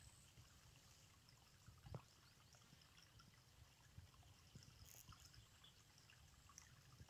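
Near silence: faint outdoor background with a few soft ticks, the clearest about two seconds in.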